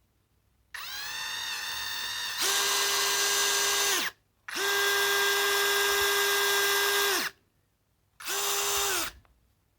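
Parkside Me cordless drill's brushless motor running free in three trigger pulls, a steady high whine. The first run starts lower and steps up to a higher, louder pitch partway through; each run winds down in pitch as the trigger is released.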